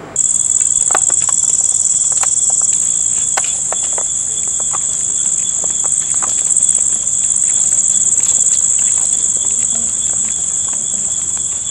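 Loud, steady chorus of night insects: a continuous high, shrill trill with a fainter lower tone beneath it, starting abruptly at the very beginning. Scattered faint clicks sound through it.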